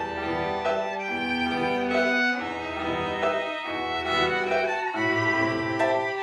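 Orchestral film score music led by bowed strings, moving through held notes over a low bass line.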